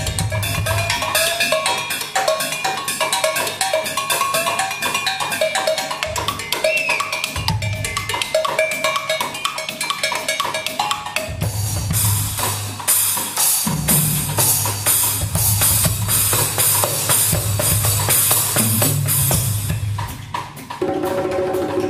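Live band playing an instrumental passage with drum kit, bass and keyboard. About halfway through the drums turn busier and brighter. Near the end the band drops back to a held chord.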